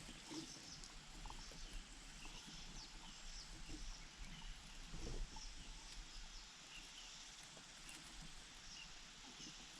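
Faint, short, high bird chirps scattered throughout, over a steady low hum and a few soft rustles.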